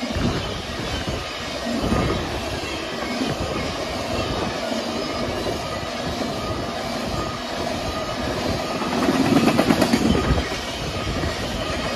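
Freight train of tank cars rolling past close by: steady rumble and clatter of steel wheels on the rails, with a louder stretch of rapid clacking about nine to ten seconds in.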